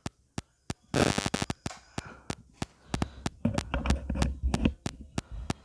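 A cheap plastic toy RC truck being handled: a quick run of sharp plastic clicks and knocks, with a short scrape about a second in and a low rumble of handling in the second half.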